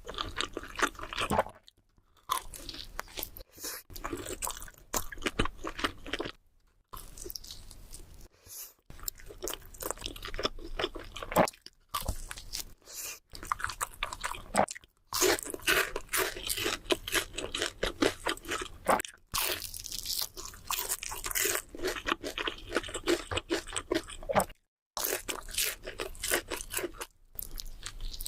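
Close-miked eating sounds: crunchy bites and chewing of fast food, with several abrupt short silences where the sound cuts off and restarts.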